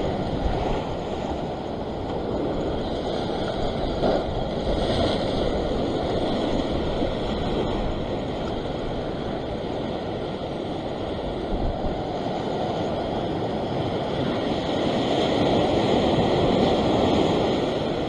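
Ocean surf washing and churning against a rock ledge, with wind buffeting the microphone. The wash swells louder near the end.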